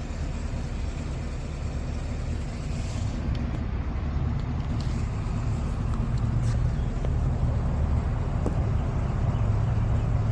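2023 Chevrolet Silverado driving, a steady low drivetrain and road rumble that grows gradually louder, with a few faint ticks: the rear-end ticking noise the owner is recording.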